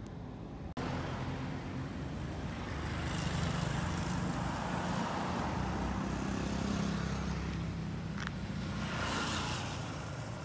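Road traffic: a motor vehicle engine hums steadily, and a wash of passing-car noise swells and fades twice.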